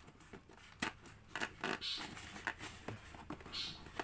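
A cardboard box being opened by hand: scratchy scrapes of fingers and flaps sliding on the cardboard, with several sharp taps and clicks, the loudest about a second in.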